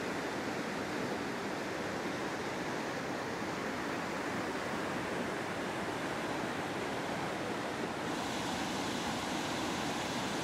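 Steady rush of the Nantahala River's whitewater. About eight seconds in it turns brighter and hissier as a cascading waterfall takes over.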